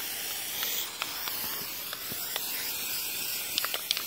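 Aerosol can of textured truck bed coating spraying in a steady hiss, laying on a heavy coat. A few short ticks come near the end.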